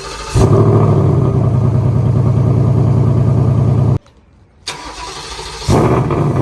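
Ford Mustang GT's 5.0 V8 with headers starting: a brief starter crank, then the engine catches and settles into a loud, steady idle. It stops abruptly about four seconds in, and a second start cranks and catches near the end.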